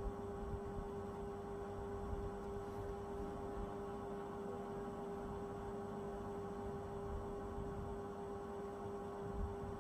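A steady hum: one held tone with fainter overtones over a low rumble, unchanging throughout, with no beat or rhythm.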